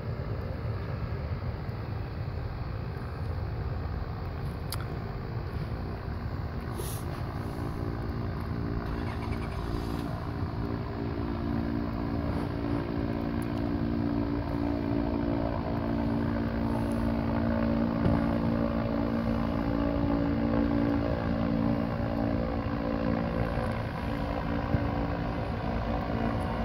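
MetLife blimp's propeller engines droning overhead: a steady hum of several tones that comes in about a third of the way through and grows louder as the airship passes above, over a steady low rumble.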